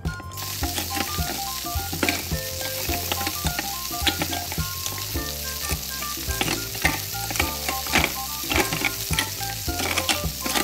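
A frying sizzle switches on abruptly just after the start and runs steadily, a sound effect for the toy pan, since the plastic food is not really cooking. Irregular light plastic clicks of a toy spatula stirring plastic vegetables in a plastic pot sound over it.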